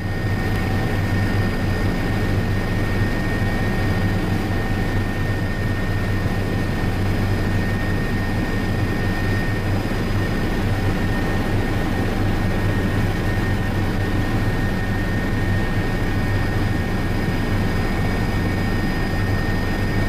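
Aircraft engine noise heard from inside the cabin: a steady loud drone with a low hum and a few constant high-pitched whines.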